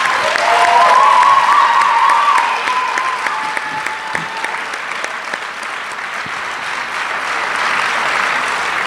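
Audience applauding steadily, with a drawn-out cheer over the clapping in the first few seconds.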